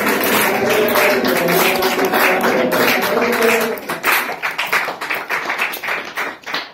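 A group song with many people clapping along; the singing stops about four seconds in and the clapping carries on alone at roughly four claps a second.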